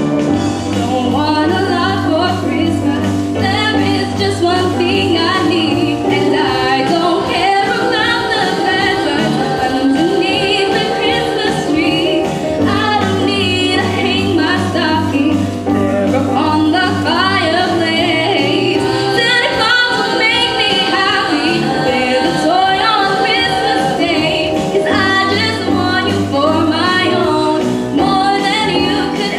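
Music with singing over sustained low accompaniment.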